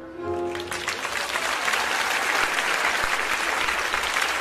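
Audience applauding, swelling in as the last held notes of the music fade out in the first second, then clapping steadily.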